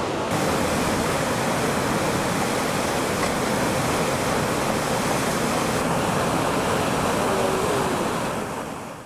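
Steady rush of fast water from tidal rapids, fading out near the end.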